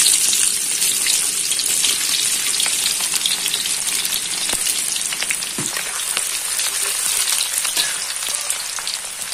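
Sliced shallots and garlic frying in a generous layer of hot oil in a wok: a dense sizzle full of crackles that starts loud and eases slowly. A spatula stirs through it near the end.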